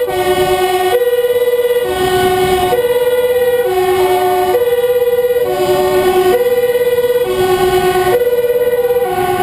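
Two-tone emergency siren of a Dutch fire engine, switching steadily between a higher and a lower tone about once a second, heard from inside the truck's cab. A second, wavering siren sounds faintly behind it.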